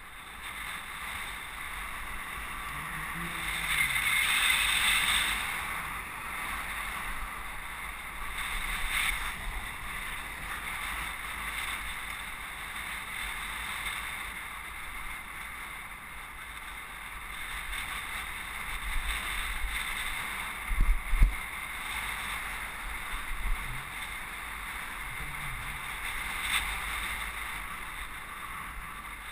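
Steady rush of wind and road noise on a bicycle-mounted camera riding along a city street, swelling a few seconds in, with a few short low knocks about two-thirds of the way through.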